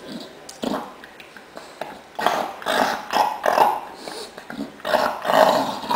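English bulldog sniffing and snuffling noisily with its nose to the floor, a run of loud, rough breaths in two bouts, the first starting about two seconds in.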